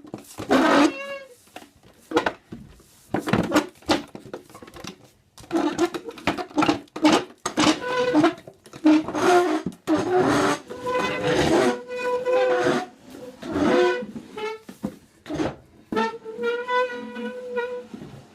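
Chair legs scraped across a floor in a string of irregular strokes. Some are short and rasping, while others hold a steady squealing pitch for a second or more.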